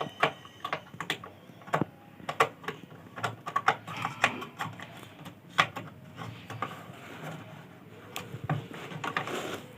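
Irregular sharp plastic clicks and taps of a RAM module being taken out of and pushed into a desktop motherboard's memory slot, working the slot's retaining clips.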